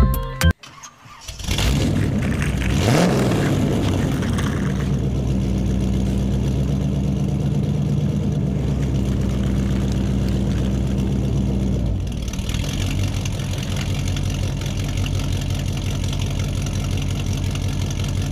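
A vehicle engine starts about a second in, revs up briefly, then runs steadily at idle. It gets a little quieter about twelve seconds in.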